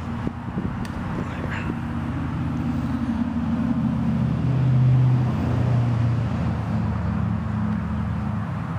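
Steady low engine-like hum, growing louder about halfway through and then easing off. A few light rustles of potato leaves being handled near the start.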